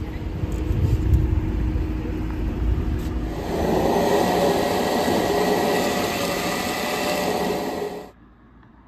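A low rumble, then from about three and a half seconds in a food processor motor running and chopping a vegetable mixture, with a steady whine; it stops suddenly about eight seconds in.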